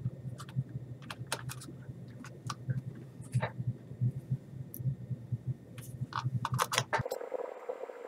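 Scattered light clicks and taps of hands handling a 7 mm SSD in its plastic holder as it is slid into a laptop's drive bay, over a steady low hum that cuts off abruptly about seven seconds in.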